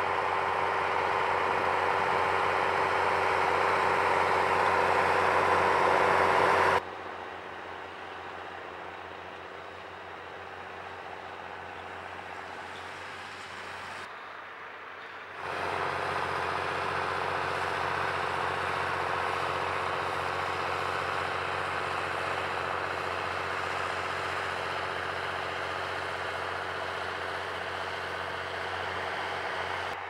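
Tractor diesel engine under load, pulling a tillage implement across a field, growing louder as it comes close. The sound cuts off abruptly about seven seconds in to a quieter, more distant engine. After another abrupt change about fifteen seconds in, it is loud and near again, running steadily.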